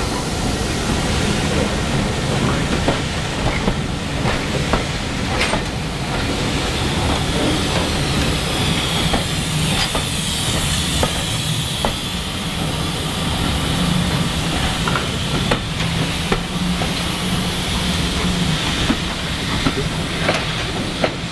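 Steam-hauled passenger coaches rolling past at low speed, with a steady low rumble and irregular clicks of wheels over rail joints. Steam hisses from beneath the carriages throughout, loudest about halfway through as the last coaches pass.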